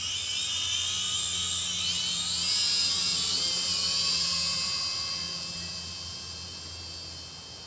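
Syma X5SW quadcopter's four small brushed motors and propellers whining at high pitch. The pitch climbs over the first few seconds as the throttle comes up, then holds and grows steadily fainter.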